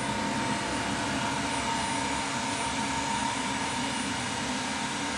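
Kellenberger 125/600U cylindrical grinder running under power: a steady, even machine hum with a constant thin whine.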